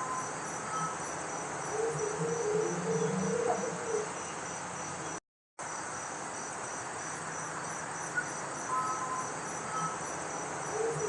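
Crickets chirping in a steady pulsing trill, with a few brief, faint chime-like tones that the recordist hears as music-box chimes. These are followed by a louder, unidentified lower-pitched sound lasting about two seconds. After a short dropout the same passage plays again.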